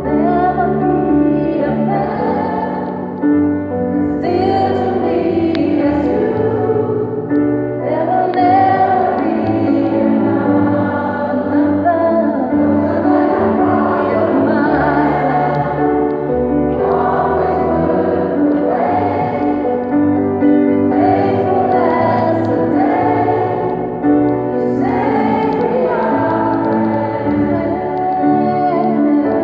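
Gospel choir singing with a female soloist on a handheld microphone, over sustained keyboard accompaniment.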